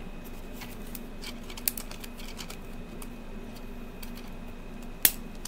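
Scattered light clicks and taps of hands handling a plastic toy and its packaging, with a sharper click about five seconds in, over a steady low hum.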